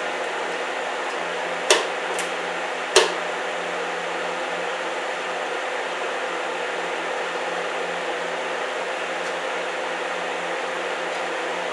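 TIG welding arc running steadily on a thin steel pulley, a constant hiss with an underlying hum. Two sharp clicks come about a second and a half apart near the start.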